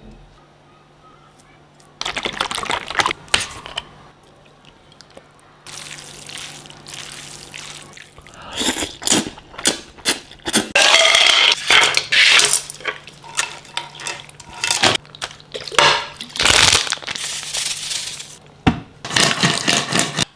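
Water from a kitchen tap running and splashing in a sink, in stretches that start and stop, growing louder and busier from about eight seconds in, over a faint steady low hum.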